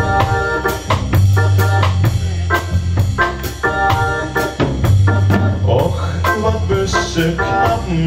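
Live band music: a drum kit keeps a steady beat under sustained organ-sounding keyboard chords and low bass notes, the chords changing every second or so.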